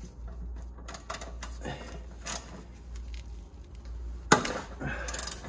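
Hand socket ratchet clicking in short irregular runs while a bolt on the engine's oil pan is loosened, with a sharper metal knock about four seconds in.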